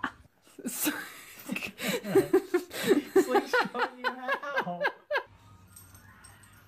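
A person laughing in a quick run of short bursts, stopping abruptly about five seconds in.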